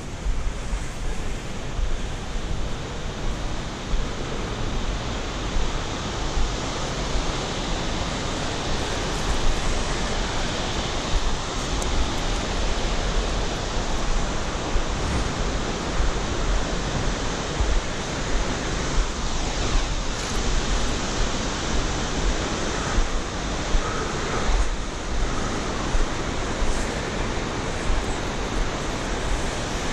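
Steady rushing of a river and waterfalls in the gorge below, with wind gusting on the microphone as a flickering low rumble.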